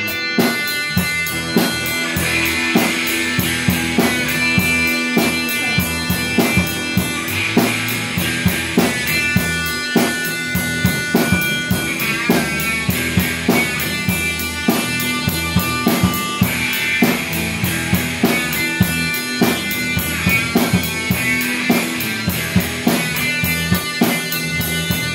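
A rock band playing live: electric guitar chords over a drum kit, with steady cymbal strokes about four a second and bass drum hits.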